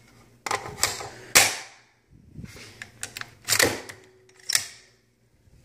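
Metallic clicks and clacks from handling a LaRue 5.56 AR-15 while an IMI Defense magazine is seated and the bolt is worked. It is a string of sharp separate clacks, the loudest about a second and a half in, then a few lighter clicks and two more heavy clacks later on.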